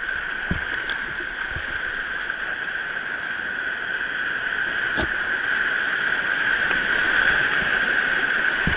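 Whitewater of a mountain stream rushing steadily, growing a little louder toward the end, with a few faint knocks.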